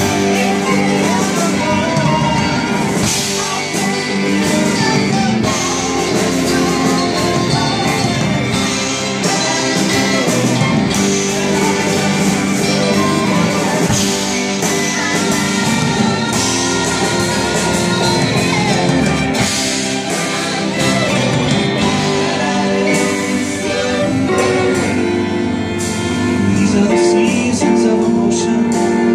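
Live acoustic band playing a song: acoustic guitar, bass guitar and violins, with a woman singing into a microphone.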